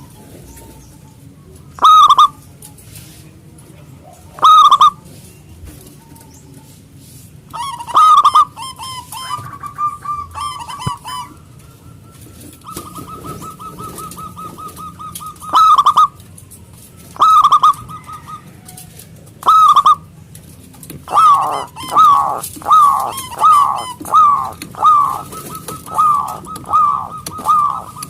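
Zebra dove (perkutut) singing: loud, short, ringing coos every two to three seconds, with a softer rapid trill around the middle. In the last quarter the coos come faster, more than one a second.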